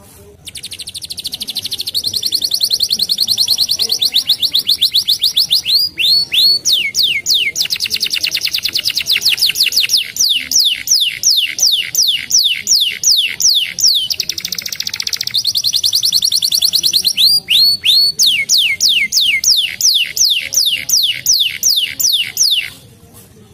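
Domestic canary singing one long song. It moves from very fast trills to runs of repeated downward-sweeping whistles, a few each second, and changes phrase every few seconds before stopping near the end.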